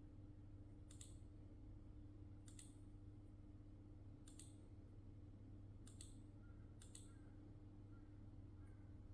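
Near silence: a steady low hum, with faint sharp clicks about every one and a half seconds.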